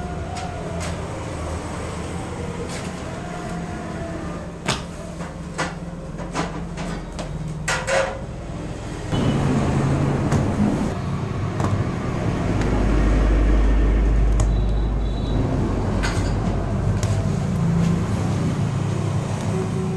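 Steady low background rumble with a few sharp knocks and clicks in the first half. About halfway through the rumble gets louder and deeper for a few seconds.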